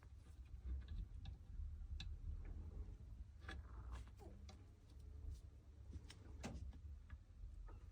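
Faint, irregular clicks and light taps of small revolver parts being handled during a strip-down, over a low steady hum.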